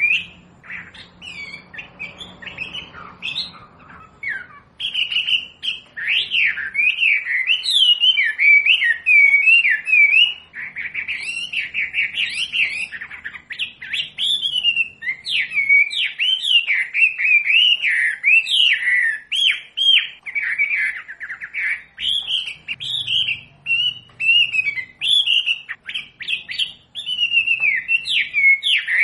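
Wambi bird singing a fast, varied song of quick rising and falling chirps and whistles, sparse for the first few seconds and then almost continuous.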